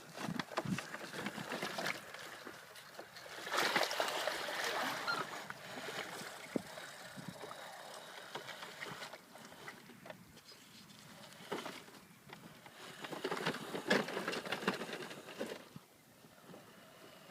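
Small off-road vehicle driving through water, its wheels splashing and churning, louder in two spells: about four seconds in and again around thirteen to fifteen seconds.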